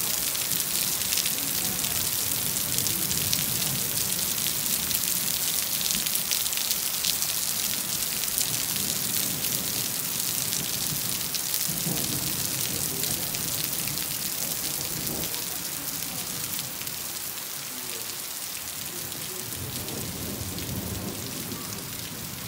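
Heavy rain falling on wet paving, puddles and stone steps: a dense, steady hiss of countless drops, easing a little over the last few seconds.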